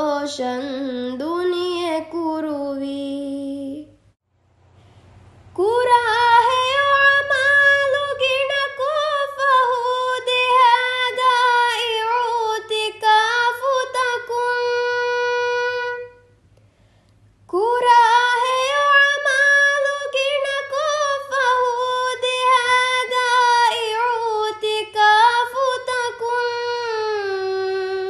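A female voice singing a Ramadan song in long, held melodic phrases: one phrase ends about four seconds in, then two long phrases of about ten seconds each follow, with short pauses between them.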